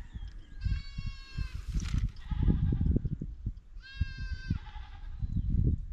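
Two high-pitched animal calls, each a steady pitched cry rich in overtones: the first about a second long, the second, about four seconds in, shorter. Low rumbling thumps run underneath.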